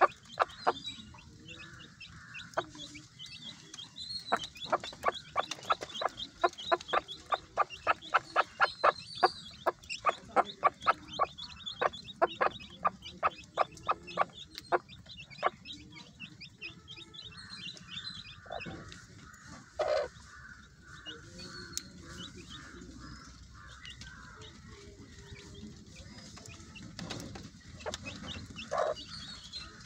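Broody hen clucking to her newly hatched chicks, a fast even run of short clucks, two or three a second, through the first half. After that come fewer, separate clucks, with chicks peeping.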